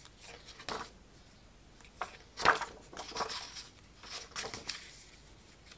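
Pages of a scrapbook paper pad being turned, a short papery rustle with each page, several in turn, the loudest about halfway through.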